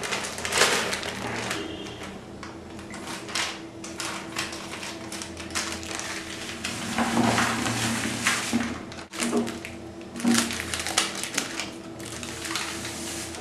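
Thin plastic packets crinkling and rustling in the hands, with scissors snipping them open, as bicarbonate powder is emptied into a plastic bucket. The crackling comes in quick irregular bursts, over a faint steady hum.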